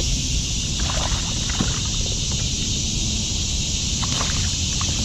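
Wind rumbling on the microphone over a steady high hiss, with a few brief splashes and knocks as a hooked largemouth bass is pulled in beside the kayak.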